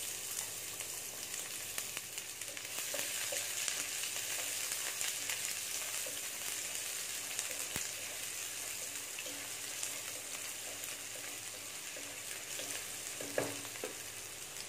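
Chopped onion sizzling steadily in hot sunflower oil in a non-stick kadai, with a single knock against the pan about 13 seconds in.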